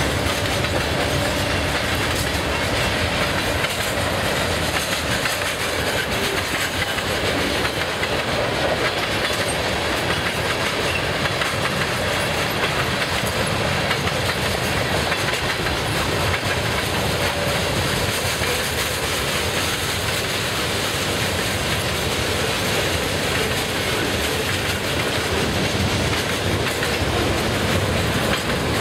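Freight cars rolling past on steel rails: wheels clacking over rail joints in a steady, unbroken rattle and rumble from hoppers, tank cars and centerbeam lumber flatcars.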